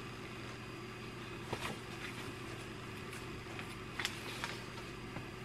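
Quiet, soft rustles and light taps of paper as workbook pages and a loose sheet are handled, a few times, over a low steady room hum.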